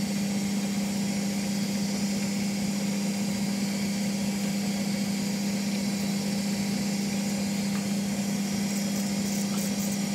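Small engineer's lathe running steadily while cutting a brass cam blank: an even motor-and-drive hum with a continuous hiss above it.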